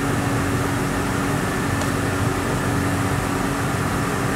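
Steady mechanical hum over a constant rushing background noise, with one faint click about two seconds in.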